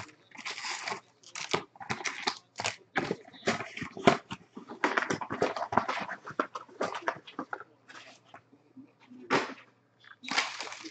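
Foil wrappers of jumbo baseball card packs crinkling and rustling as the packs are pulled from the box and stacked, in a quick, irregular run of crackles and taps.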